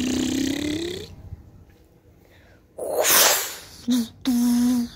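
A child's mouth sound effects for a toy spaceship. A hummed engine tone rises in pitch and stops about a second in. About three seconds in comes a loud hissing whoosh, and near the end two short hummed notes.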